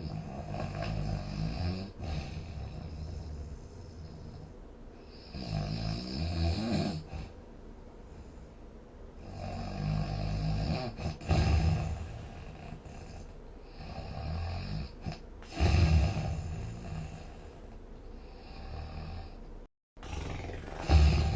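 A person snoring in sleep, a series of snores recurring every four to five seconds with quieter stretches between, cutting to silence for a moment just before the last one.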